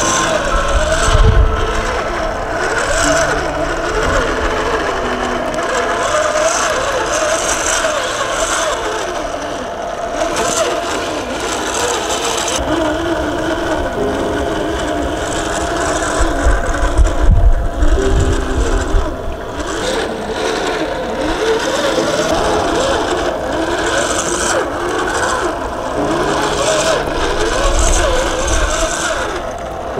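RC4WD Trail Finder 2 scale crawler's electric motor and geartrain whining, the pitch rising and falling with the throttle as it crawls over rock, with a few low thumps.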